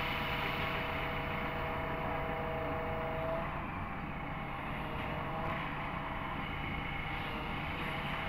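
JCB backhoe loader's diesel engine running steadily under the operator's control, with a steady whine over the engine note that fades about three and a half seconds in.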